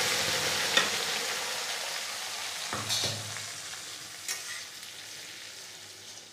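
Wet green paste of coriander, green garlic and green chillies sizzling in hot mustard oil in a kadhai, loud at first and fading steadily. A few clicks and scrapes of a plastic spatula stirring it.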